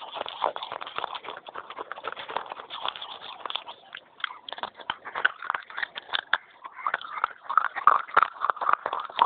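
Close-up crunching and chewing of fired clay pot pieces: a fast, continuous run of crisp, crackling crunches. They grow louder in the second half.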